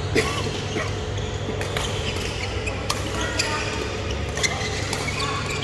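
Badminton rally: several sharp racket-on-shuttlecock hits, roughly a second apart, with short squeaks of court shoes on the floor. A steady low hum and faint voices run underneath.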